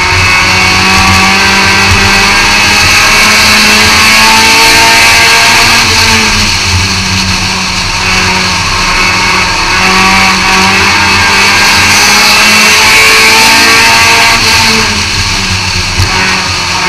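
Thunder-class race car's engine heard from inside the car, running hard and loud, the revs rising and falling twice as it goes through the turns.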